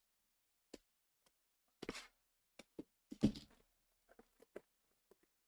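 Scattered handling noises from trading-card hobby boxes being handled for opening: light taps and clicks, a brief rustle about two seconds in, and one louder thump about three seconds in.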